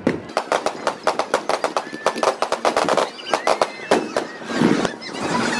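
Fireworks display: a rapid run of sharp crackling pops, many a second, from bursting shells.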